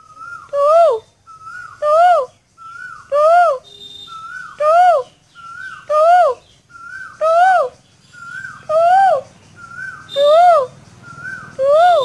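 A cuckoo calling: a faint short lead note, then a louder hooting note that rises and falls in pitch. The call repeats nine times, about every 1.3 seconds.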